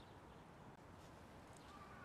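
Near silence: faint outdoor background noise with a few light ticks.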